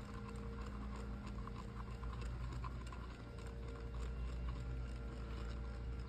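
Resin being stirred in a mixing cup to bring sunken glitter back up: faint, irregular clicks and scrapes of the stir stick against the cup, over a low steady hum.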